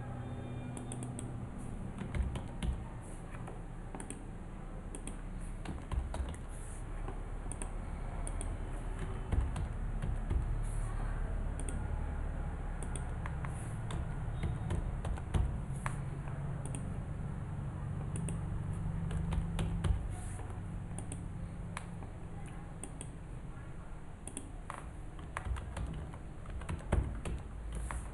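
Typing on a computer keyboard: irregular short runs of keystroke clicks over a steady low hum.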